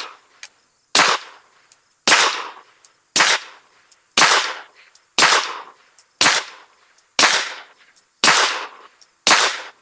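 Beretta APX A1 Tactical 9mm pistol fired suppressed through a Rugged Obsidian 45 suppressor: nine shots, evenly paced about one a second. The pistol cycles every round on its standard recoil spring.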